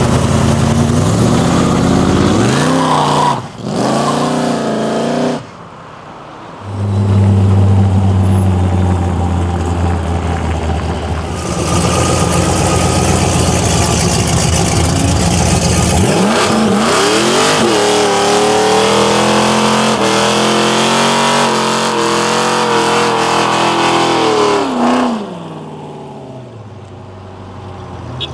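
Muscle car V8 engine revving loudly. The revs climb about two seconds in and drop out briefly, then settle into a steady run. Later they rise again, are held high for several seconds and fall off near the end.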